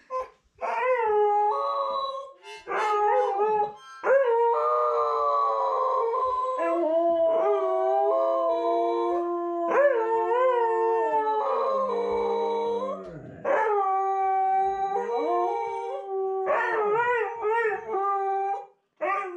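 Huskies howling together: long, wavering howls that overlap one another, with a few short breaks between them.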